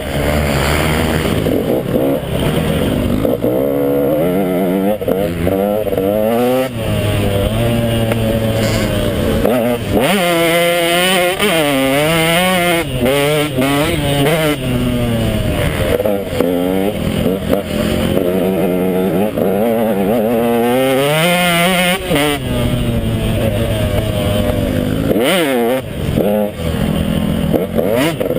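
KTM 150 XC single-cylinder two-stroke dirt bike engine revving hard and dropping off again and again under throttle, its pitch rising and falling quickly through the gears.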